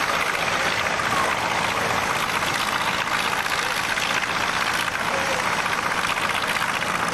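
CAC Boomerang's twin-row radial engine running at low power as the fighter taxis, a steady rough drone with a fast even firing pulse.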